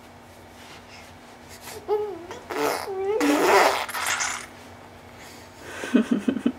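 Six-month-old baby vocalizing: starting about two seconds in, a wavering high voice that glides up and down, mixed with breathy, spluttering noise; short choppy baby sounds start near the end.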